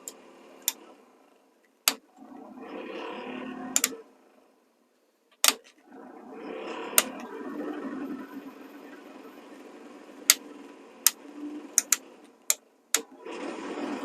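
Sleeper HVAC blower fan of a 1985 Kenworth K100E being switched on and off. It starts about two seconds in, cuts out near four seconds, starts again about six seconds in and runs steadily until it briefly stops and restarts near the end. Sharp clicks come throughout, several close together late on.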